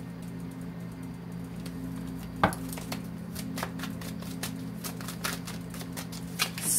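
A tarot deck being handled and shuffled: a sharp tap about two and a half seconds in, then a run of light clicks and flicks of the cards. A steady low hum runs underneath.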